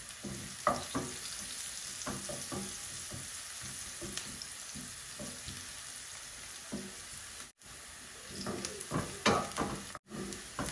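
Sliced onions frying in hot oil in a nonstick wok with a steady sizzle, stirred with a wooden spatula that scrapes and knocks against the pan; the stirring strokes come more often near the end. The sound breaks off for an instant twice.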